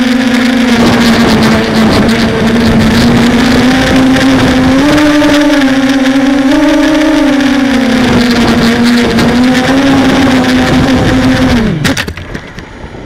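Hexacopter's electric motors and propellers buzzing at full flight, their pitch rising and falling as the throttle changes. About 12 s in, the motors spool down with a falling pitch and stop, leaving wind noise on the microphone.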